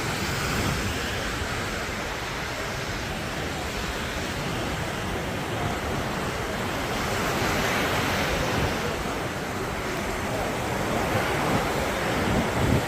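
Sea surf washing onto a sandy beach, swelling louder about eight seconds in as a wave breaks, with wind rumbling on the microphone.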